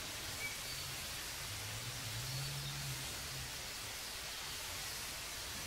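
Steady hiss of an old recording's background noise during a pause in speech, with a faint low hum underneath.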